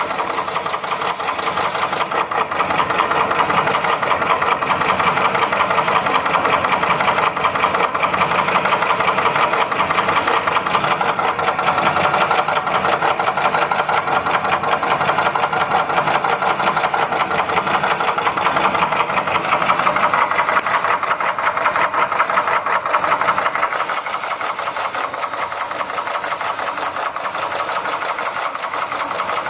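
1962 Chevrolet Impala engine running steadily, with a fast, even ticking over the engine note: the abnormal engine noise being tracked down.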